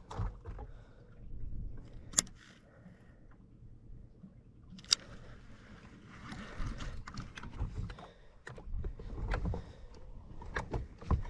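Handling noise while working a hooked bass that is snagged in cover: low rumbling with scattered clicks and knocks, and two sharp ticks about two and five seconds in.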